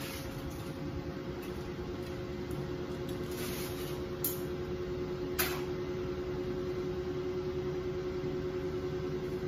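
Steady hum of a running kitchen appliance fan, with two short clicks about four and five and a half seconds in.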